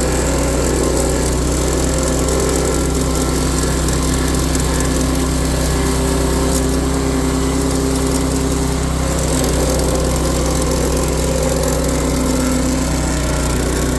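Forestwest stump grinder's small Rato gasoline engine running steadily at working speed, a constant engine drone that holds its pitch and level throughout.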